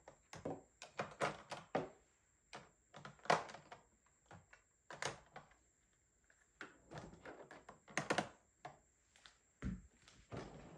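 Plastic cosmetics such as lipstick tubes clicking and knocking against each other and a clear plastic drawer organizer as they are sorted by hand, in irregular taps and clatters with louder knocks about three and eight seconds in.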